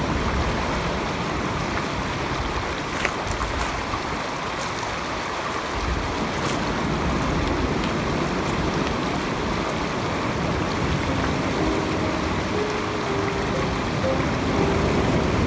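Surf washing onto a pebble beach and breaking against concrete tetrapods, a steady rushing with a few light clicks. Faint music tones come in over it in the last few seconds.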